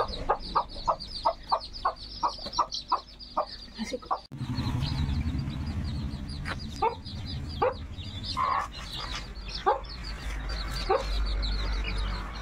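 Newly hatched chicks peeping without a break, over a hen clucking in a quick, even run of about five clucks a second. About four seconds in the clucking stops and a low rumble comes in, with only scattered clucks and calls over the peeping.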